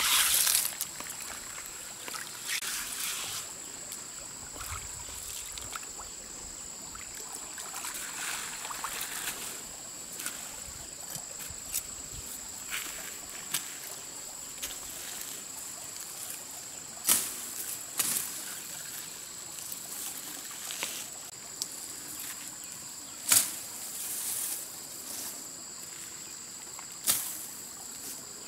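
Insects keep up a steady high-pitched drone. Over the first part, water sloshes and gravel shifts as hands scoop in a shallow streamside pool. In the second half come several sharp single snaps as leafy branches are broken off bushes.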